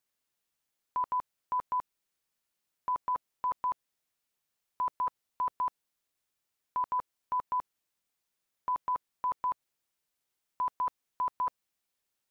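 Electronic beep sound effect: short pips at one steady pitch, in quick clusters of two or three. A group comes about every two seconds, six groups in all, with silence between.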